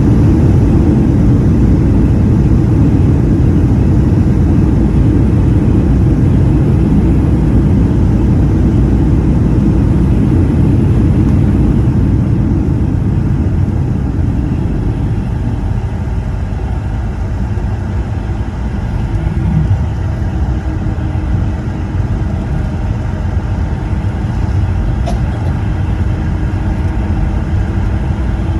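Boeing 757-200 cabin noise at a window seat: a loud, steady low rumble of the jet engines and airflow that eases about halfway through to a quieter hum with a steady low tone, as the airliner slows.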